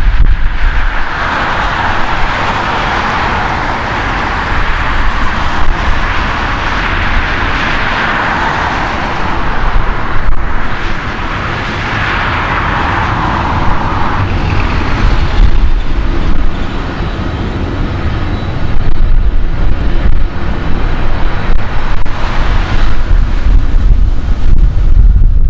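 Jet airliner engines running at taxi power: a steady rushing hiss that eases after about fifteen seconds. Wind rumbles on the microphone throughout and gets gustier near the end.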